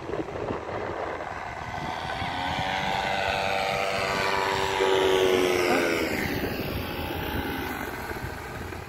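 Powered paraglider's (paramotor's) engine and propeller droning as it flies past close by. It grows louder to about the middle, drops in pitch as it passes, then fades.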